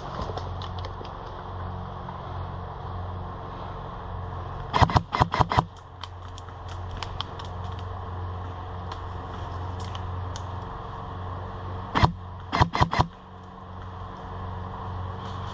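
Two short bursts of airsoft gunfire, each about five rapid sharp cracks: one about five seconds in and another about twelve seconds in. Under them runs a steady low hum, with faint scattered shots further off.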